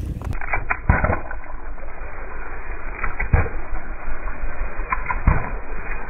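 An object being crushed under a car tyre: muffled crackling and cracking, with three heavy thuds about a second in, just past three seconds and just past five seconds.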